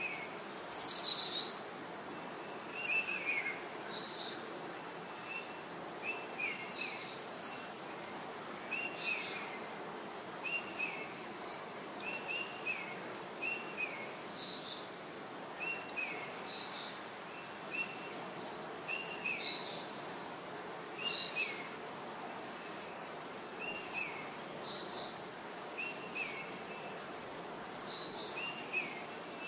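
Baby parrot chirping repeatedly at feeding time: short chirps about once a second, a lower one alternating with a higher one, over a steady hiss. One louder, higher call comes about a second in.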